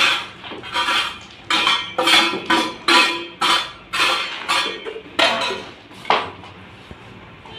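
A small metal hand tool scraping and chipping at a rubble-and-cement floor in quick repeated strokes, about two a second, stopping a little after six seconds in.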